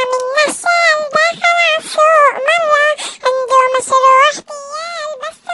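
Dancing cactus toy singing an Arabic children's song in a high-pitched, child-like voice, phrase after phrase with short breaks.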